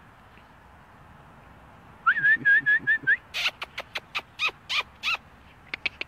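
A person whistling a quick run of five short notes about two seconds in, then a string of short, high, falling calls at about three a second.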